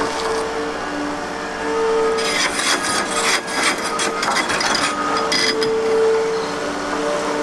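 Liebherr R930 G8 excavator working, with a steady whine throughout and a burst of scraping and knocking from about two to five seconds in.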